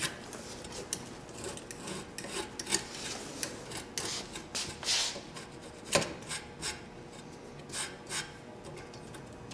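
Gritty grip tape on a metal scooter deck scraped and rubbed along the deck's edge to break off the excess tape, in irregular rasping strokes, with one sharp click about six seconds in.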